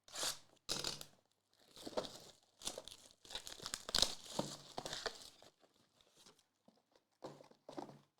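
Plastic wrapping on trading-card packaging being torn open and crinkled by hand, in irregular rustling bursts with short pauses between them.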